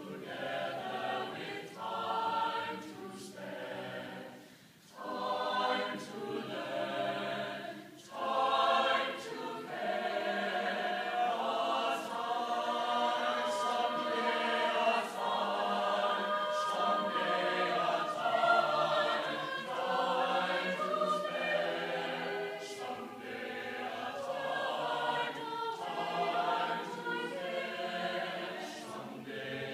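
Chamber choir singing, several voices on different pitches at once: short phrases with brief breaks in the first eight seconds, then one long continuous passage.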